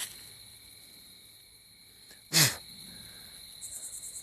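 A person sneezes once, sharply, about two seconds in, over a steady high trilling of night insects.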